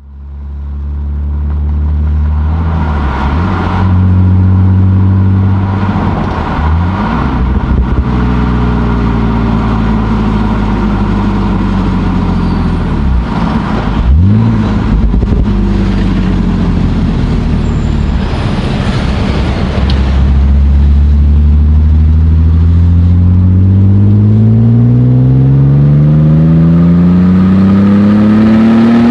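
BMW E39 530i's inline-six exhaust through a Hamann aftermarket muffler, idling steadily with a few quick throttle blips early and midway. About three quarters of the way in, the engine revs up slowly and steadily, its pitch climbing to the end.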